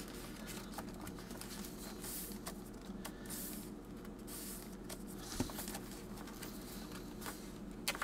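Pages of a handmade journal being turned and handled by hand: soft paper rustles and light taps, with one slightly louder tap about five and a half seconds in, over a faint steady hum.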